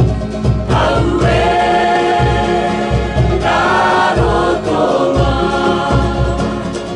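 Cook Islands aparima song: a group of voices singing in harmony over strummed ukuleles and a steady low beat, with long held notes midway.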